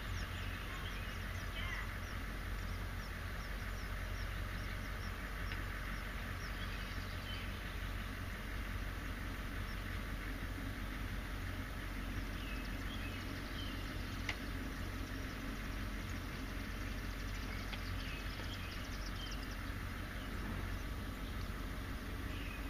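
House finch chicks giving faint, high, thin begging cheeps in short clusters several times while being fed, over a steady low background rumble.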